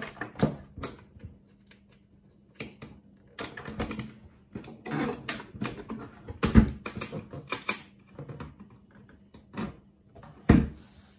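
Hands working on a Dual 701 turntable's chassis and tonearm: irregular clicks, taps and knocks of small plastic and metal parts, with the two loudest knocks about six and a half and ten and a half seconds in.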